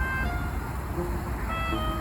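Background music with a simple melody of short held notes, over a constant low rumble of road traffic.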